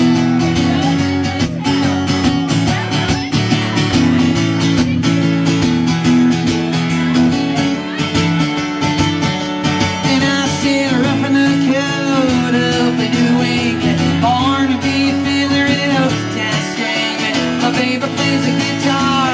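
Acoustic guitar strummed in a steady country rhythm for an instrumental break, with a man's voice singing over it in the second half.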